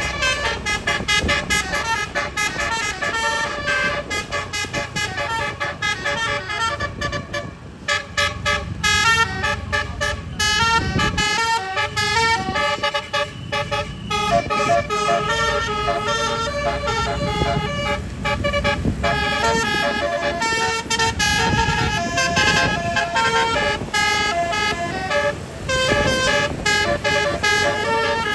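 Indonesian tour bus 'telolet' (basuri) multi-tone musical horns playing quick melodic tunes, the notes stepping several times a second, over the low rumble of a bus engine, with a short break about seven seconds in.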